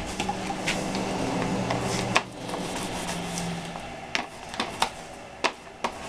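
Small paint roller handled in a plastic roller tray while paint is rolled on, giving a series of short sharp clicks and taps. A low drone of traffic through an open window fades away about two to three seconds in.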